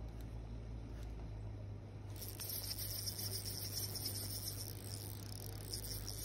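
Spinning reel giving a steady high buzz while a trout is played on light line, starting about two seconds in over a low steady hum.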